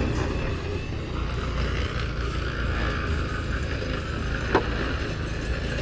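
A vehicle engine running steadily with a low rumble, with a single sharp click about four and a half seconds in.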